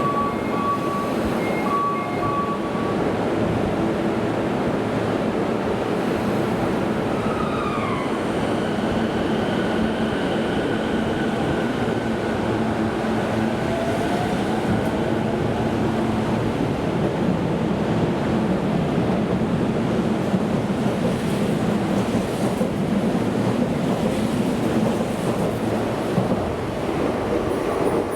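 Toei Shinjuku Line electric train moving along the platform with a steady, loud rolling rumble. Short beeps sound at the start, and about eight seconds in the motor whine falls in pitch.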